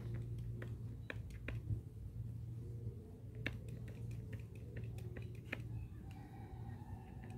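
Scattered light clicks and taps from hands handling a plastic-rimmed car air filter and an aerosol can, over a steady low hum.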